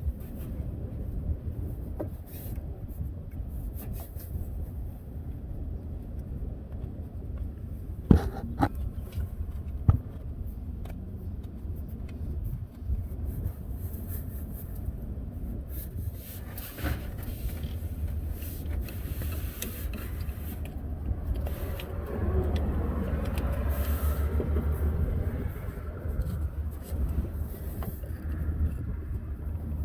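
Low steady rumble with scattered scraping and clicking as grime is scraped off the engine block at the fuel pump mount, and two sharp knocks about eight and ten seconds in.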